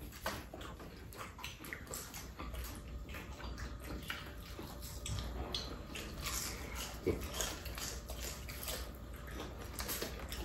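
Mealtime noises: people chewing crispy battered fried shrimp, with chopsticks and spoons tapping against bowls in many small, irregular clicks and crackles.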